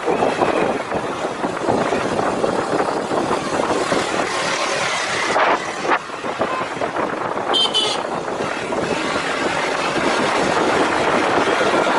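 Motorcycle riding noise: wind rush and engine sound fill the mic steadily. A brief high tone sounds about seven and a half seconds in.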